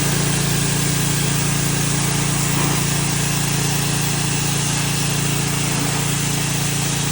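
Gas-engine pressure washer running steadily, its engine hum under the constant hiss of the high-pressure water spray.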